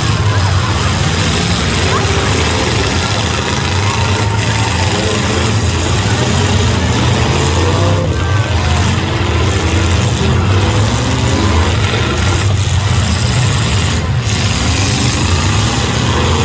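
Several demolition derby cars' engines running and revving together in a loud, continuous low rumble, with crowd voices underneath.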